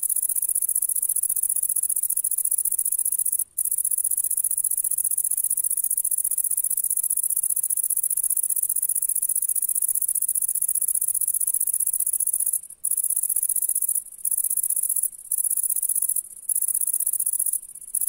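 A bush cricket stridulating in grass: a continuous, very high-pitched buzzing trill that breaks off for a moment once early and several times near the end.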